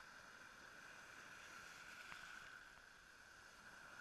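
Near silence: faint, steady wash of breaking surf.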